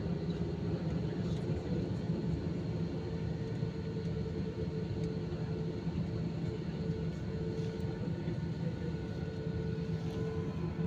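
Jet airliner taxiing, heard from inside the cabin: a steady drone of engines and cabin air with a constant humming tone.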